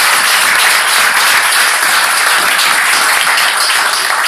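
Audience applauding in a hall: dense, steady clapping from many hands.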